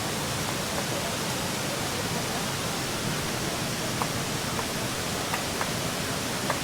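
Steady, even rushing of a waterfall, with a few faint short clicks in the second half.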